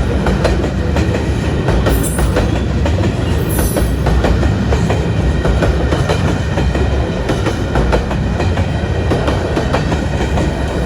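Train running on the rails: a steady loud rumble with wheels clicking and clattering over the track, and two brief high-pitched sounds about two and three and a half seconds in.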